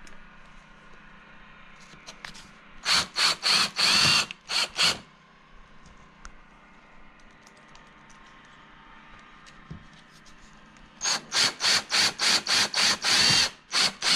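Cordless drill driving self-tapping screws into the fibreglass side skirt in short trigger pulses. There are two runs of quick pulses, one about three seconds in and one starting about eleven seconds in. The drill only starts the screws; they are snugged by hand so as not to strip them or crack the fibreglass.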